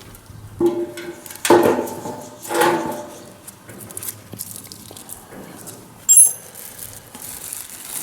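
Metal fan parts being handled and knocked together: three ringing clanks in the first three seconds, then a short, high metallic chink about six seconds in.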